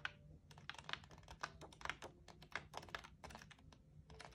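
Sheets of a scrapbook paper pad being handled and turned over: a string of faint, irregular paper clicks and ticks, several a second.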